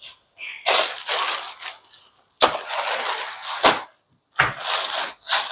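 Crisp rustling of saree fabric being handled and shifted, in three spells of about a second each.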